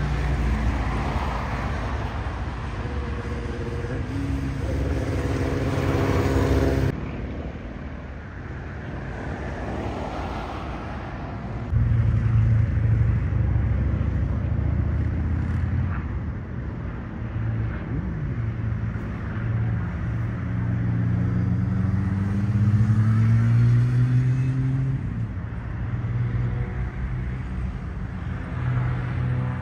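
Propeller aircraft engines droning overhead, with stacked engine tones whose pitch slowly glides as aircraft pass. The sound changes abruptly about 7 and 12 seconds in.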